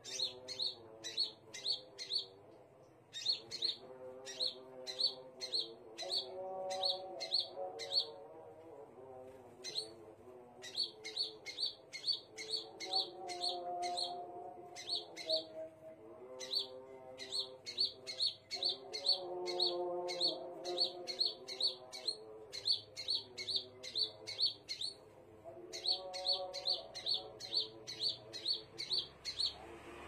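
Crimson sunbird (sepah raja) calling: runs of sharp, high chips, about four to five a second, broken by short pauses.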